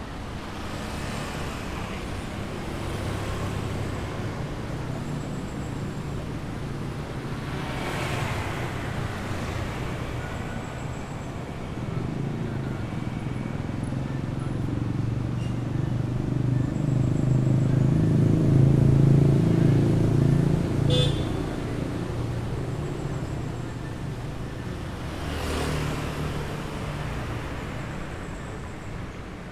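Busy street traffic: a steady rumble of engines, with vehicles passing close by about a third of the way in, loudest a little past the middle, and again near the end. A short horn toot sounds among the traffic.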